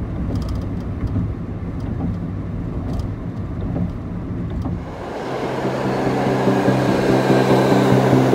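Steady low rumble of a moving vehicle heard from inside. About five seconds in it gives way to a louder, brighter sound with steady held tones: a New York subway train moving through a station, with background music coming in.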